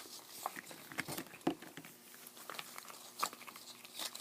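Plastic toy packaging being handled and opened: scattered small crinkles and clicks, a few sharper ones spaced about half a second to a second apart.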